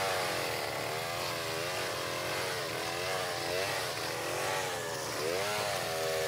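Two-stroke chainsaw cutting through a felled tree trunk, its engine pitch rising and falling as the chain bites into the wood.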